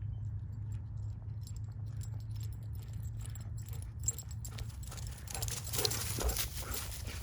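A dog gnawing and chewing on a wooden stick: scattered cracks and crunches that grow thicker and louder about five seconds in.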